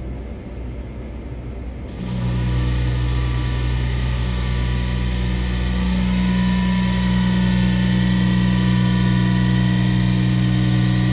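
Diamond-cut wheel lathe spinning a Ford Raptor alloy wheel while its cutting tool machines the face: a steady machine hum. About two seconds in it grows louder, as a hiss and two steady low tones join it.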